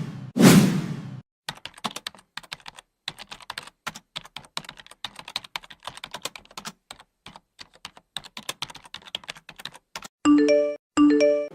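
Computer keyboard typing, a long run of irregular key clicks. It is preceded by a short whoosh at the start and followed near the end by two short pitched electronic tones.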